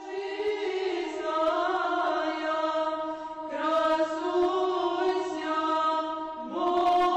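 Background music of choral chant: several voices holding long, slow notes that shift pitch every second or two.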